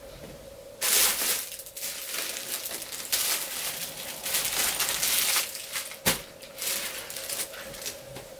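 Clothes rustling and crinkling as they are pulled off wardrobe shelves and handled. The rustling starts about a second in and comes in uneven spells, with a sharp knock about six seconds in, over a faint steady hum.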